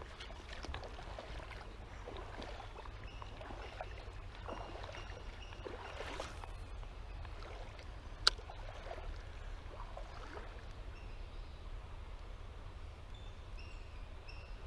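Footsteps wading through a shallow creek, water swishing and splashing irregularly around the legs, with one sharp click about eight seconds in and a few short high chirps.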